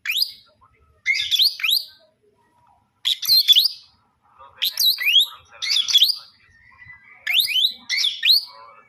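Lovebird chirping in about seven short bursts with pauses between, each burst a cluster of quick, high-pitched rising squeaks.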